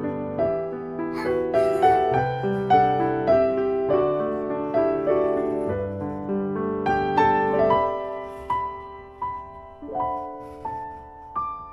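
Background piano music: single notes and chords struck one after another, each dying away, in a gentle melody.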